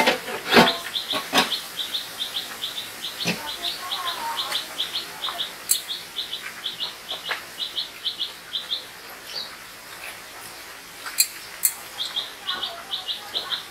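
A rapid run of short, high chirps, about four a second, pauses about nine seconds in and starts again near the end. Sharp clinks of steel plates, pots and utensils sound over it from time to time.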